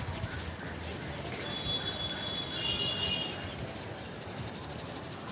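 Hands rubbing and kneading a head in a massage, a dry scratchy texture of palms and fingers on hair and scalp at about three strokes a second. A thin high tone sounds for about a second and a half near the middle.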